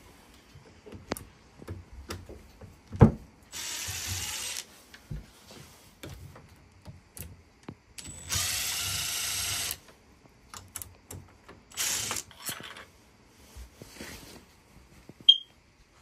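Makita 18V cordless impact driver running in short bursts on the screws of a uPVC door handle: a burst of about a second, a longer one of about a second and a half, then shorter spurts, with clicks and knocks of handling between. A sharp knock about three seconds in is the loudest sound.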